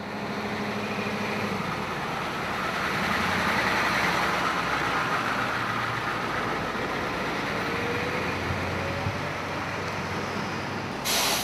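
Steady mechanical rumble and hiss with a low hum, swelling slightly partway through, with a brief louder burst of noise near the end.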